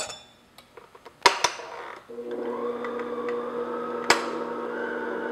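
A few sharp knocks and clinks of a bowl being handled, then an electric stand mixer starts about two seconds in and runs steadily, beating flour into cake batter. A single sharp click about four seconds in.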